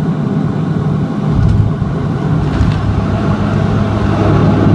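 De Havilland Canada Dash 8-400's Pratt & Whitney PW150A turboprop engines and propellers running loud and steady, heard inside the cabin during landing. About a second and a half in, a deeper rumble sets in from the main wheels on the runway.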